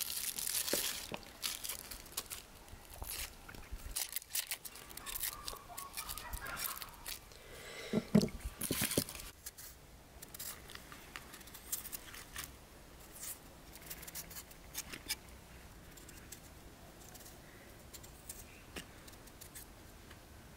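Hand-peeling an onion and then a potato with a small kitchen knife: a run of small crisp scrapes, clicks and tearing of peel, with a louder knock about eight seconds in.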